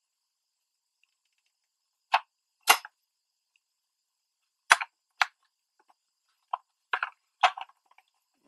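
Sharp clicks and taps as a 1/24 scale diecast model car is handled and turned in the hands, about seven of them at irregular intervals, most in the second half.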